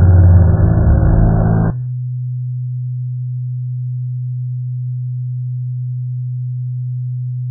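A loud low rumbling noise cuts off abruptly a little under two seconds in, replaced by a single steady low hum that holds unchanged.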